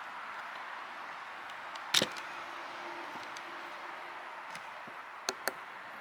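A single sharp knock about two seconds in, then two light clicks near the end, over a steady hiss.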